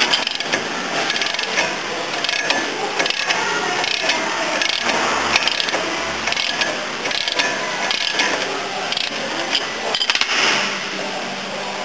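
Ratchet wrench clicking in runs of rapid clicks as it turns the forcing screw of a C-frame ball-joint press on a Mercedes W164 steering knuckle, with metal-on-metal clinks of the tool.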